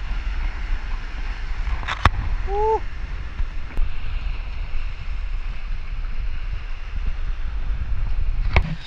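Wind rumbling on a cased GoPro's microphone, with surf washing behind it. Two sharp knocks, about two seconds in and near the end, and a brief call about two and a half seconds in.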